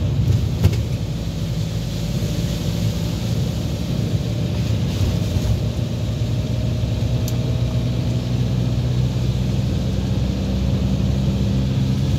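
An older car's engine running steadily, heard from inside the cabin, with an even hiss of tyres on the wet road.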